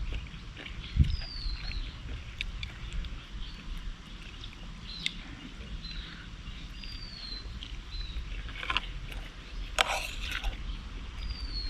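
Wet chewing and lip-smacking of someone eating raw beef, with scattered clicks and a thump about a second in. A short high chirp falling in pitch recurs every few seconds.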